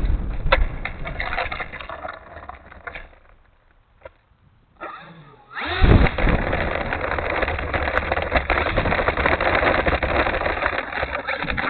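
Strong wind gusting across the microphone, a rushing rumble that dies away to a brief lull and then slams back in loudly about six seconds in.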